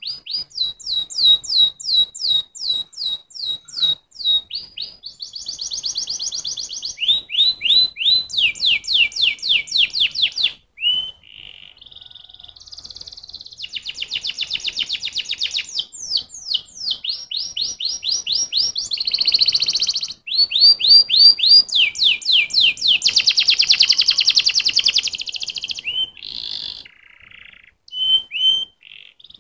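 Domestic canary singing a long song made of phrases of fast repeated notes. Some phrases are quick whistled sweeps and some are rapid buzzy trills, with brief breaks a little after ten seconds and near the end.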